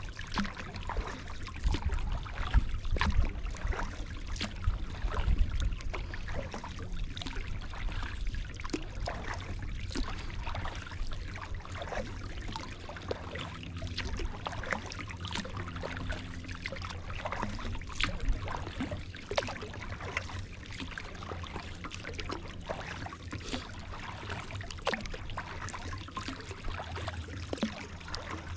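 Kayak paddling: the paddle blade dipping and water dripping and trickling off it in many small, irregular splashes. A low rumble runs underneath, heaviest in the first several seconds.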